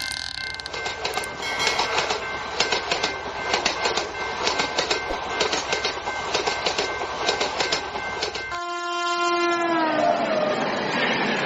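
Train running past with the clickety-clack of its wheels over the rail joints. About eight and a half seconds in it cuts abruptly to a train horn blowing one held note that sags in pitch, followed by the steady noise of the train rolling on.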